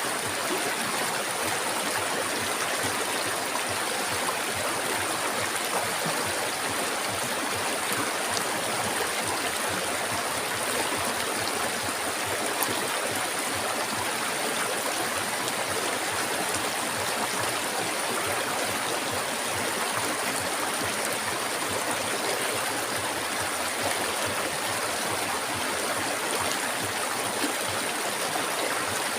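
River water flowing over rocks in a steady, continuous rush, with a thin steady high hiss above it.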